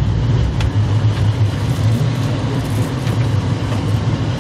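Steady low rumble of a passenger train running along the track, heard from inside its glass-roofed dome car.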